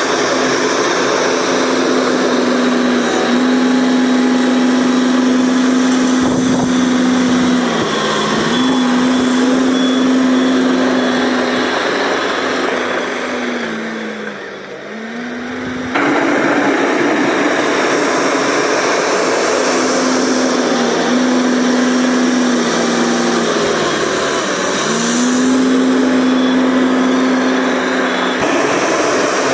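Tata Hitachi TL340 wheel loader's diesel engine running hard at steady high revs, its pitch sagging briefly several times and recovering.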